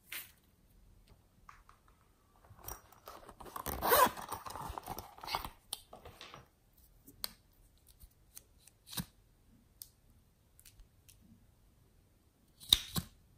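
Hands handling small plastic squeeze tubes: a crinkly rustle about four seconds in, then a few sharp plastic clicks, with a loud cluster of clicks near the end.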